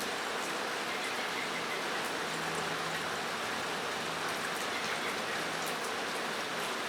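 Steady rain falling on a metal roof: an even hiss with scattered raindrop ticks.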